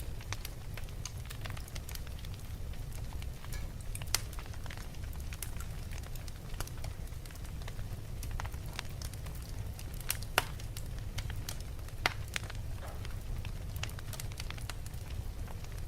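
Wood fire burning in a fireplace: a steady low rumble of flames with frequent irregular crackles and sharp pops, a few louder pops standing out.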